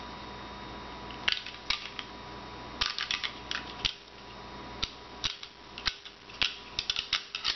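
Sharp, irregular clicks and clacks of a Beretta PX4 Storm pistol being field-stripped by hand, its slide and barrel being handled after coming off the frame. There are about a dozen of them, loosely grouped, over a faint steady hum.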